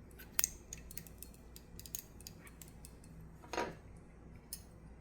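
Small steel pistol parts clicking and clinking as the last-round hold-open is fitted back into a Husqvarna-made Colt 1907 pocket pistol, with one sharp click about half a second in and a short scrape about three and a half seconds in.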